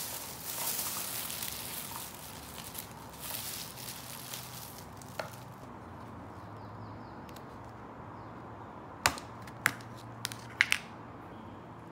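Handling noises: a few seconds of rustling, then about six sharp clicks or knocks close together near the end.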